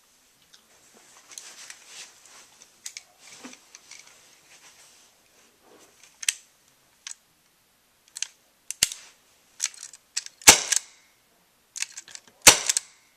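Umarex H&K USP CO2 BB pistol fired twice, about two seconds apart near the end, each a sharp pop, after a run of light handling clicks and rattles.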